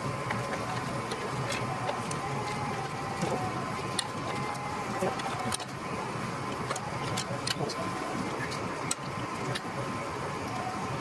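Scattered light clicks and taps of thin aluminium cooling baffles being handled and fitted against an air-cooled aircraft engine's cylinders, over a steady low machine hum with a faint high tone.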